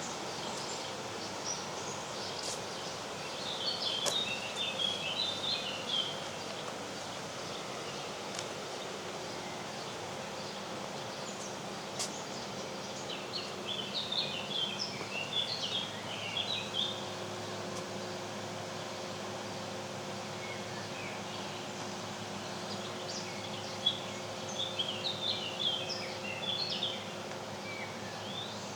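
A songbird singing three short, rapid phrases of high chirping notes, one about every ten seconds, over a steady background hiss.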